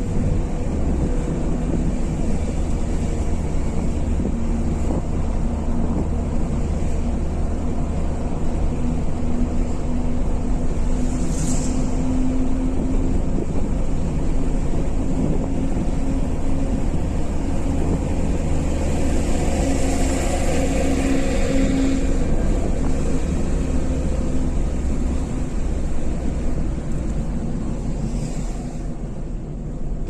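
Steady road noise inside a moving car's cabin at motorway speed: tyre and engine rumble, with a hum that swells in the middle and fades about 22 seconds in.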